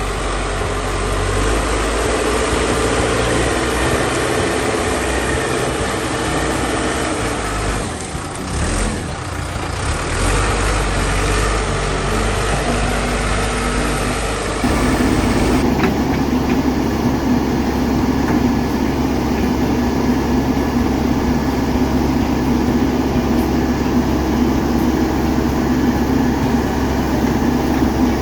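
Diesel engine of a BDMG BD388 backhoe loader running under work, steady with small rises and falls. About halfway through the sound changes abruptly and becomes louder and heavier.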